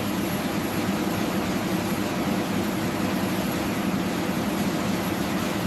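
A loud, steady mechanical drone with no pattern or rhythm, cutting in suddenly at the start.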